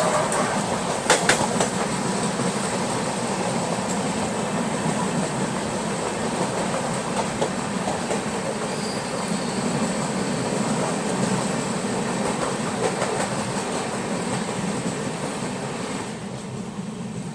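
An Indian Railways express train passing on the adjacent track, heard from a moving train: a steady rush and rattle of coaches and wheels going by, with a few sharp clanks about a second in. The rush eases off near the end as the last coach passes.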